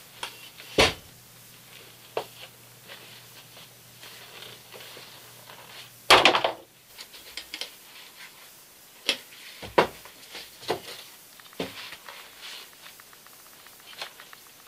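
Knocks, thumps and rustling as a car seat is taken apart by hand: the vinyl cover, foam cushion and metal spring frame are handled and set down on a workbench. Several separate thumps, the loudest about six seconds in.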